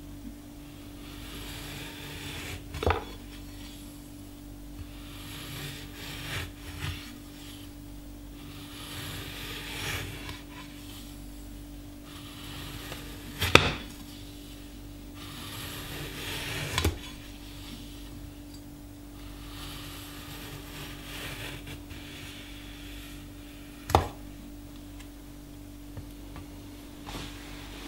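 Large cleaver-shaped Almazan kitchen knife slicing thin rounds off a lemon on a wooden cutting board: soft cutting and scraping, with the blade knocking sharply onto the board four times, loudest about halfway through. A steady low hum runs underneath.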